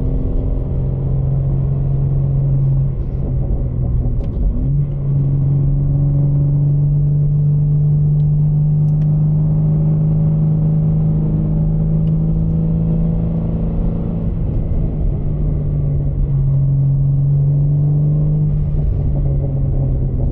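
BMW G80 M3's twin-turbo straight-six droning through its aftermarket exhaust at low, steady road speed, heard inside the cabin. About four seconds in the note breaks and comes back a little higher as the gearbox drops from fourth to third.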